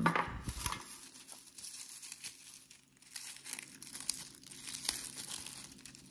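Crumpled brown paper wrapping being pulled open by hand around a small crystal, crinkling and rustling in an irregular run of crackles, loudest at the very start.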